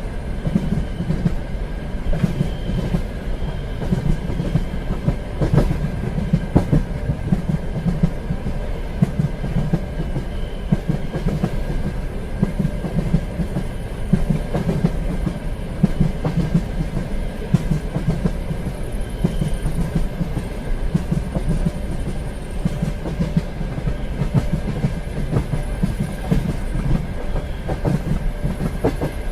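Passenger train running along the track: a steady low rumble with irregular clicks of the wheels over the rail joints, and a few faint brief squeals.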